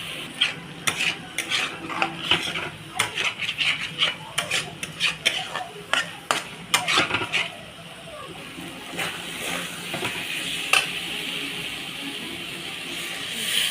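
A spoon scraping and clinking against a cooking pan as potato curry is stirred, over a steady sizzle. The rapid clinks stop about halfway through, leaving mostly the sizzle with one last clink.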